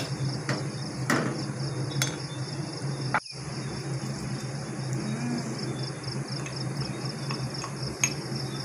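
Steady, evenly pulsing chirr of insects over a low steady hum, with a few sharp clicks of a wooden spoon against a stainless-steel pot as it stirs.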